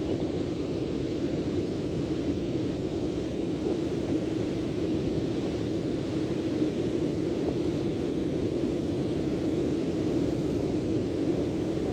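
Steady rushing noise of sea surf and wind, an even hiss with no distinct breaks.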